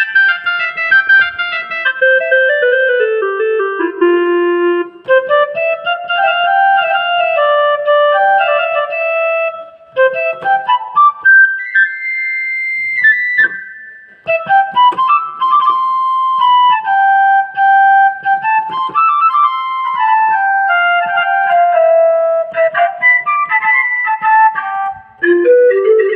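A Rockster RS41IN electronic keyboard playing a single-note melody on one of its voices, with a falling run at the start, a quick climb to a long held high note midway, then more tune.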